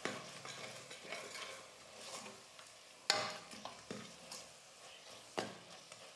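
Steel spoon stirring and scraping thick spiced onion-tomato masala around a stainless pressure cooker, with a light sizzle of the masala frying in oil. Sharp scrapes come just after the start, about three seconds in (the loudest) and again near the end.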